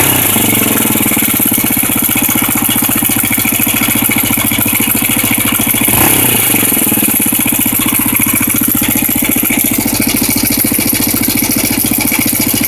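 Honda NX 250 motorcycle's single-cylinder engine idling with a rattle, which the uploader ties to the cam chain tensioner. The throttle is blipped briefly right at the start and again about six seconds in.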